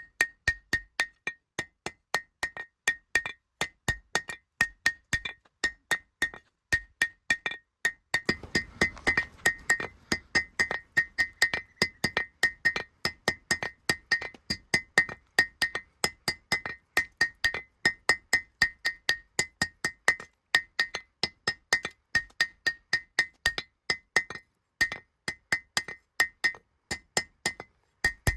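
Hand hammer striking steel on an anvil, about three blows a second, each blow ringing at the same clear pitch. A brief rushing noise runs under the strikes about eight seconds in.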